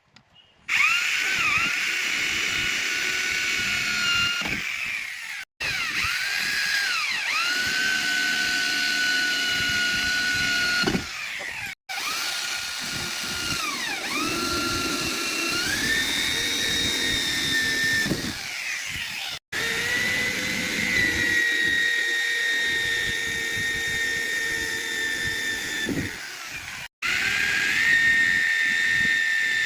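Electric power drill running under load, its motor whine dipping in pitch and recovering as the bit bites. The sound cuts off abruptly several times and restarts at once.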